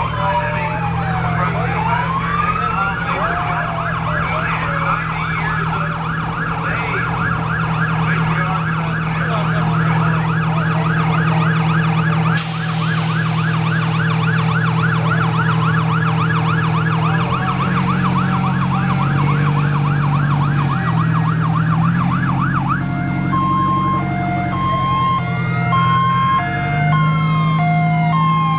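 Several fire truck and ambulance sirens sounding at once. Slow wails and fast yelping sweeps overlap, and a two-tone hi-lo alternation joins them near the end, over the steady low running of the truck engines. A short burst of hiss comes in about twelve seconds in.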